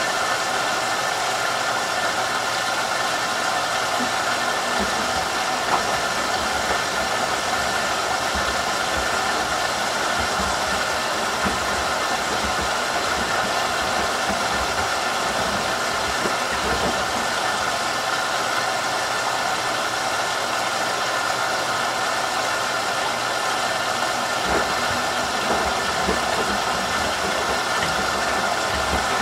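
Whirlpool Duet WFW97HEDC front-loading washer's direct-drive drum tumbling a load of towels in the final rinse water. A steady wash of water noise runs throughout, and the low sound of the turning drum comes and goes in stretches.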